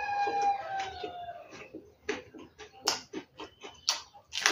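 A rooster crows once in the background: one slightly falling call that ends about a second in. Close-up eating sounds follow, wet chewing and sharp mouth smacks and clicks as fried fish and rice are eaten by hand. The clicks are loudest in the second half.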